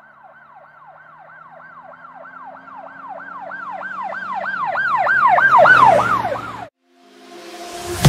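Emergency-vehicle siren in a fast up-and-down yelp, about three sweeps a second, growing steadily louder as it approaches, then dropping slightly in pitch and cutting off suddenly. Music fades in near the end.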